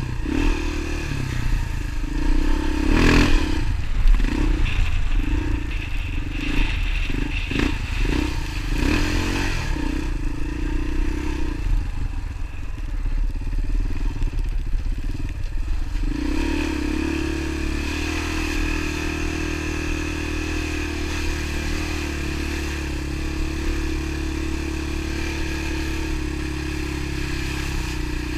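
A vehicle's engine running under way. Its pitch and level rise and fall repeatedly through the first half, then it settles to a steady drone about halfway through.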